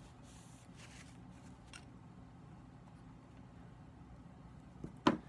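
Soft rustling of a paper towel wiping a knife blade, a few short strokes in the first two seconds, over a low steady hum. A brief, much louder sound comes near the end.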